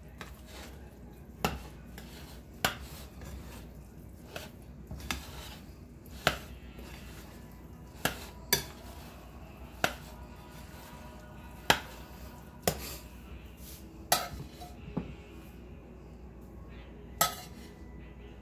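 Metal spoon stirring thick cornbread dressing in a ceramic mixing bowl and scooping from a skillet, with about a dozen sharp clinks of metal on dish, irregularly spaced a second or so apart.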